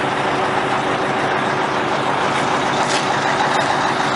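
An engine running steadily under a loud, even rushing noise.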